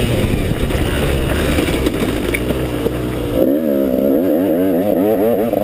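KTM 200 XC-W single-cylinder two-stroke engine running hard under way, with wind rushing over the onboard microphone. About three and a half seconds in, the engine note starts wavering rapidly up and down.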